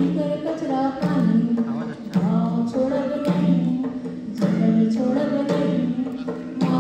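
A voice singing a short melodic phrase over and over, holding each note about half a second. Frame-drum strikes mark a beat about once a second.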